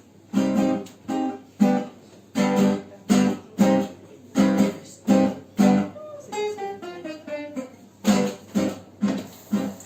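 Guitar playing the introduction to a tango: strummed chords in a steady rhythm, about two a second. About six seconds in, a descending run of single notes breaks in, then the chords return.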